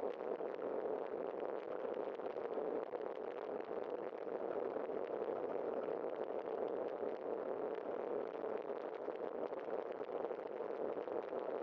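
Steady, muffled rushing of a bicycle rolling along an asphalt street, picked up by a camera mounted on the bike: tyre and wind noise with a fine, light rattle running through it.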